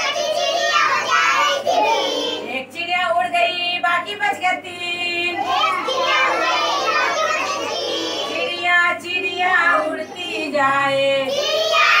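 A group of young children singing a Hindi nursery rhyme together, with action gestures and clapping.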